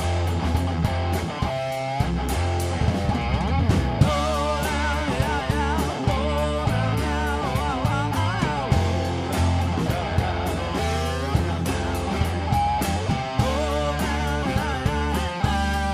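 Live rock band playing: electric guitar, electric bass guitar and drum kit with cymbals, at a steady driving beat.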